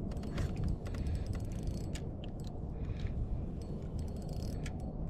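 A steady low rumble with scattered light clicks and rattles from handled fishing gear.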